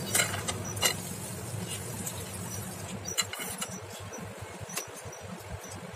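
A metal spatula clinks and scrapes against a nonstick frying pan as a slice of bread is turned and lifted out, giving a few sharp clicks over a steady low rumble.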